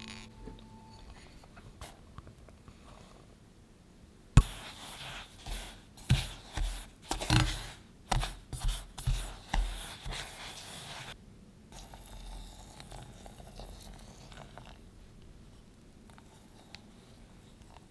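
A utensil stirring dry cocoa powder and sugar in a stainless steel saucepan: a sharp knock about four seconds in, then a run of scratchy scraping strokes, one or two a second, that stops after about eleven seconds.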